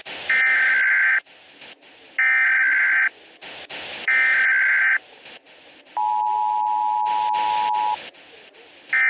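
Emergency Alert System header: three screeching digital data bursts of about a second each, two seconds apart, followed by the two-tone attention signal held for about two seconds, with hiss and clicks between them. A fourth burst starts right at the end.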